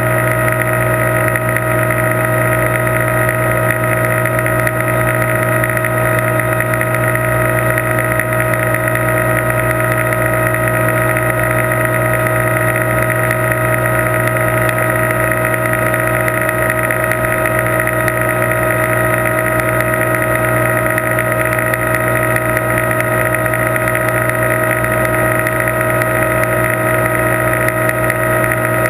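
Aquarium pump humming steadily: a loud, unchanging mechanical drone with a low hum and a few steady higher tones.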